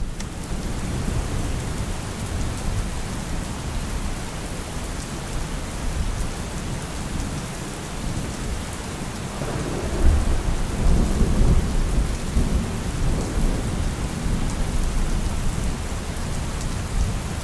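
Steady rain with thunder, a deep rumble of thunder swelling about ten seconds in and fading over a few seconds.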